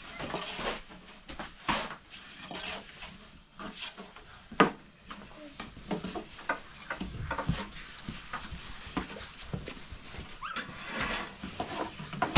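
Scattered knocks and taps, the sharpest about four and a half seconds in, with faint voices in the background.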